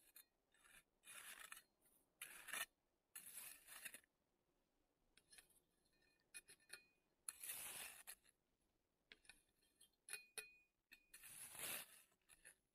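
Small shovel scraping and digging into snow in a series of short strokes with pauses between them, the strongest about halfway through and near the end.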